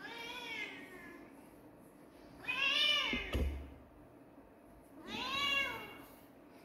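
A cat meowing three times, each a drawn-out call that rises and then falls in pitch; the first is fainter than the other two. A short thump comes just after the second meow.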